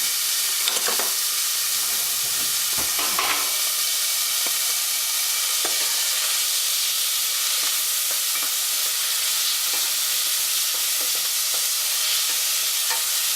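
Garlic, anise and celery frying in a hot pan, a steady sizzle, with a few light knocks of a utensil about one and three seconds in.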